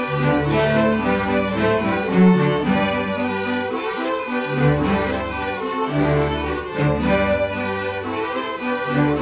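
Middle school string orchestra, mixed from separately recorded home parts, playing a piece together: violins carry sustained melody and chords over cellos and basses playing a low line in repeated short blocks of notes.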